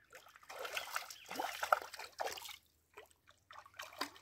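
A hooked piau thrashing at the water's surface: irregular splashing and sloshing for about two and a half seconds, then a few smaller splashes near the end.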